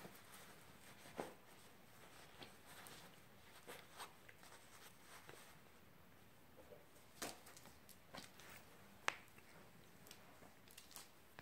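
Faint, scattered clicks and taps of a pinscher puppy's claws on a laminate floor as it mounts and shuffles a plush toy, with one sharper click about nine seconds in.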